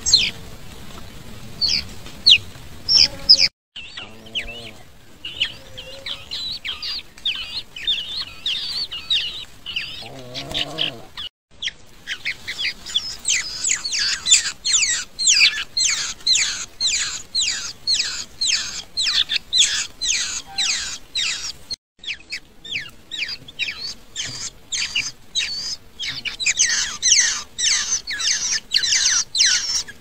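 Sooty-headed bulbul nestlings giving begging calls: a rapid series of short, high, downward-sliding chirps, about three or four a second, growing denser and louder from about halfway through. A brief lower warbling sound comes twice in the first half, and there are a few short gaps of silence.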